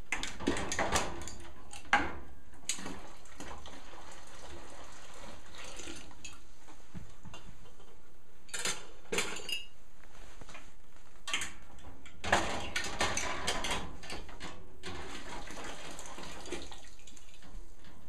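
Glass canning jars being set into a wire jar rack in a stainless steel canning pot, clinking and knocking against the metal and each other in several short clusters.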